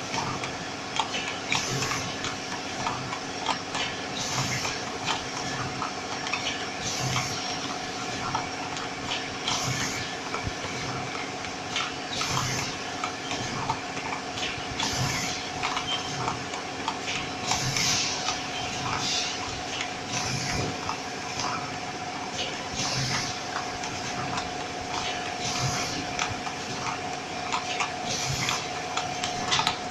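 Automatic tea packaging machine running: a steady hum with constant fast clicking from its mechanism, and a short hiss recurring about every two to three seconds in a regular cycle.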